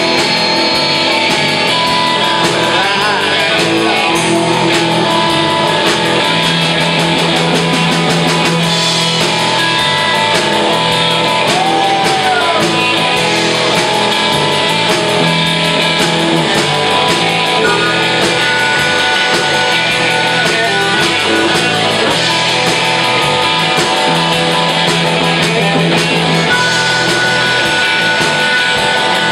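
Live band playing a blues-rock number on electric guitars, electric bass and a drum kit. A steady high note is held for a few seconds twice in the second half.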